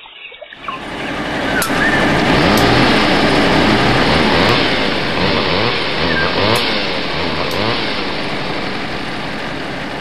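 Loud engine noise of heavy logging machinery, starting abruptly about half a second in. Several engines run at once, their pitch rising and falling, with a few sharp cracks over them.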